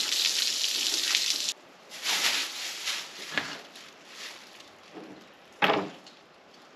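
Garden hose spraying water as a fish fillet is rinsed, shut off suddenly about a second and a half in. After it come scattered handling noises, rustles and a click, with one loud sharp rustle or knock near the end.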